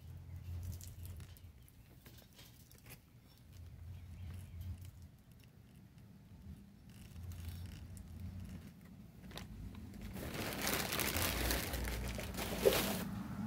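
Potting soil being handled by hand into a pot: soft rustling and crumbling as handfuls are dropped and pressed down, with a louder stretch of rustling near the end.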